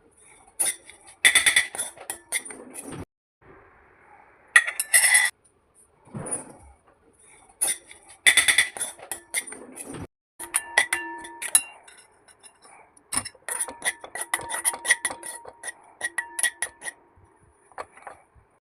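Metal utensils clinking and knocking against cookware in short runs of sharp clicks, some leaving a brief ringing tone, with a denser run of rapid clicking in the second half.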